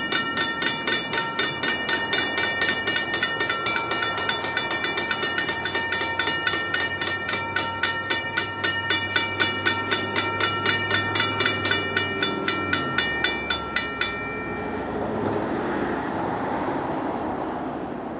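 Railroad warning bell ringing steadily, about three clear metallic strikes a second, then stopping about fourteen seconds in. A steady rushing noise carries on after it.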